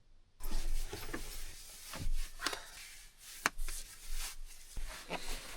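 Rustling of bedding and clothes with scattered knocks and clicks as a person climbs out of a sleeping bag and moves around inside a small van.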